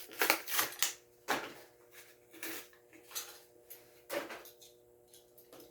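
Packaging of a diecast toy car being torn and pulled open by hand: a flurry of crinkling, tearing bursts in the first second, then several separate rips and scrapes.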